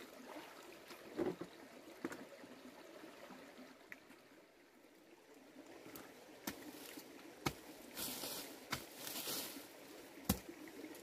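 Faint trickle of a shallow stream, then from about six seconds in a series of sharp knocks and scrapes as a digging tool strikes and scrapes the stony earth of the stream bank.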